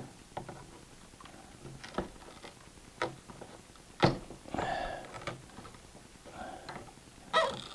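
Screwdriver prying at a circuit board inside an avionics radio: scattered sharp clicks and knocks of the tip against the board and metal chassis, the loudest about four seconds in, with a few short scraping rasps as the board is worked up against tight Velcro.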